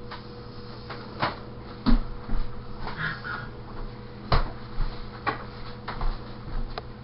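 Scattered knocks, thumps and footfalls of people moving about a kitchen, loudest about two seconds in and again a little past four seconds, over a steady low hum.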